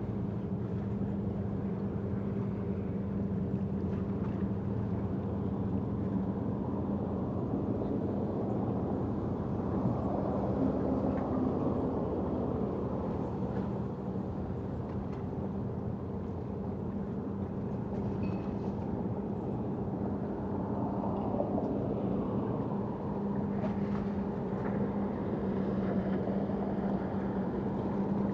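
Steady engine drone with a constant low hum, swelling slightly a third of the way in and again past two-thirds, over an outdoor wash of noise.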